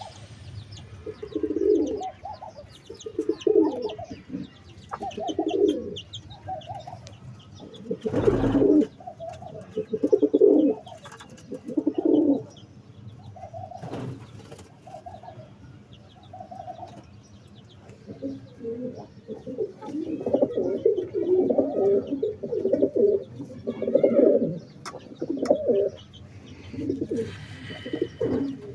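Domestic pigeons cooing in repeated low phrases. The cooing is sparse at first, then several birds overlap in the second half. A single sharp thump comes about eight seconds in.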